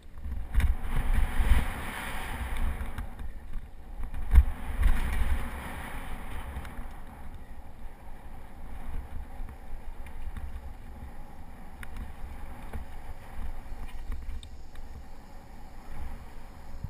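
Mountain bike riding fast on a dirt singletrack trail: a rumble of the tyres over the ground, with wind blowing on the handlebar-mounted GoPro Hero2's microphone. The wind hiss is loudest in two stretches in the first six seconds, and a sharp knock from a bump comes about four seconds in, with a few fainter knocks later.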